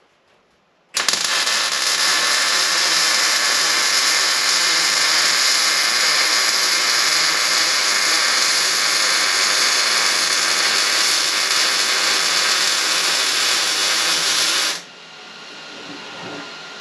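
MIG welder arc sizzling steadily as a steel floor brace is welded in. It starts abruptly about a second in and cuts off suddenly near the end, leaving a quieter steady hum.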